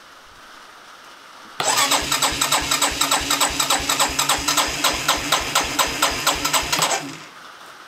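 Electric starter cranking the Chinese 250cc four-stroke ATV engine on choke, chugging in even pulses about five times a second for roughly five seconds, then stopping without the engine catching.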